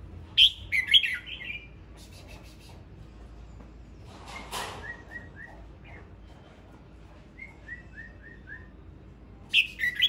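Male red-whiskered bulbul singing: a loud, short warbled phrase about half a second in and another near the end, with softer runs of short falling notes in between. A brief rustle comes a little before the middle.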